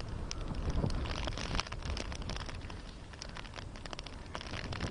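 Cyclone wind and rain hitting the microphone: a steady low rumble of wind with many short sharp taps of raindrops.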